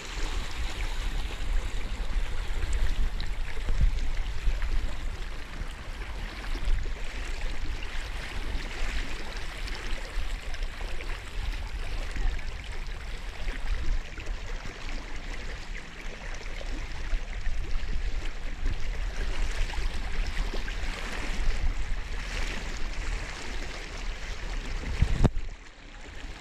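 Muddy floodwater sloshing and swishing around someone wading through it, over a steady low rumble. A single thump near the end.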